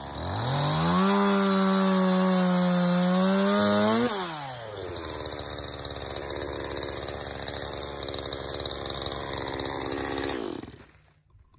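Chainsaw revving up to full speed in the first second and held there, loud and high, for about three seconds. Its pitch then drops and it runs steadily at a lower level as it cuts through wood for about six seconds, before stopping shortly before the end.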